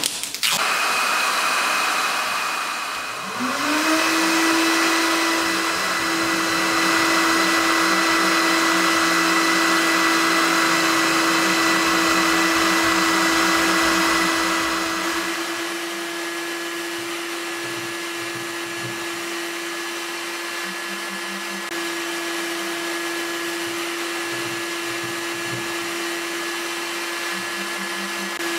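Electric heat gun running: its fan motor spins up about three seconds in with a rising whine, then runs at a steady pitch with a blowing hiss. It drops a little in level about halfway through.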